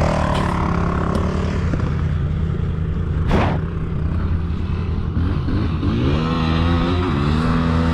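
A vehicle engine running steadily, with a short rushing burst about three and a half seconds in, then revving up twice in rising sweeps near the end.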